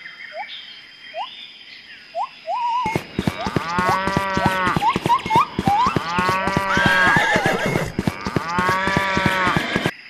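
Farm-animal calls laid over the scene as sound effects. A few faint short rising chirps come first. From about three seconds in there are three loud, drawn-out livestock calls over a rapid rattle.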